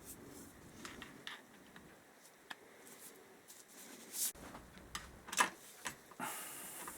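Scattered light metallic clicks and taps from hand tools, a torque wrench and socket, being worked on the clutch hub nut of a motorcycle engine. The sharpest click comes about five and a half seconds in, with a short scrape near the end.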